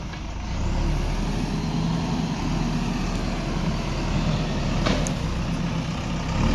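Diesel engine of heavy machinery running steadily, getting louder about a second in, with a short sharp click near five seconds.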